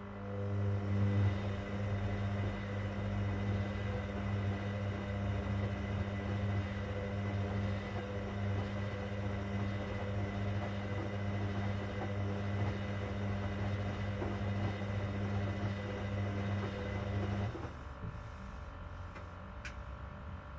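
Hoover Dynamic Next washing machine running on a cotton 60 °C cycle: a steady low hum with a rushing noise that starts suddenly and cuts off after about seventeen seconds, followed by a single small click.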